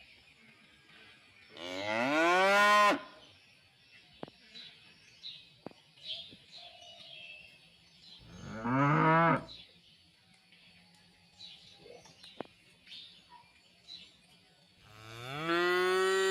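Cows mooing: three separate long calls, the first about a second and a half in, one near the middle, and the last starting near the end, each rising in pitch at its onset. Faint bird chirps and small clicks in the pen between the calls.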